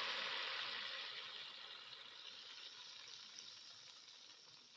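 Cumin-tempered hot oil (a tadka) poured onto haleem, sizzling loudly at first, then slowly dying down.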